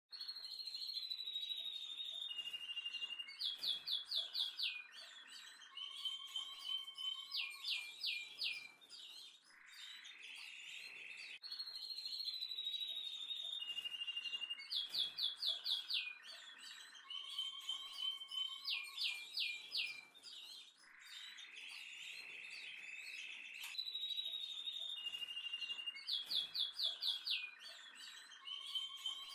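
Looped birdsong track: high whistled notes, held tones and quick runs of short chirps, the same phrase repeating about every eleven seconds.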